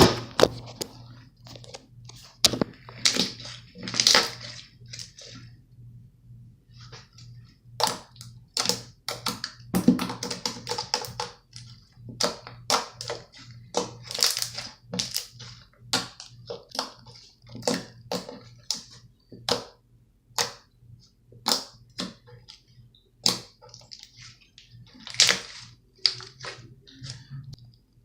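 Slime being squished and poked close up, giving an irregular run of sharp pops and clicks, roughly one every half second to a second.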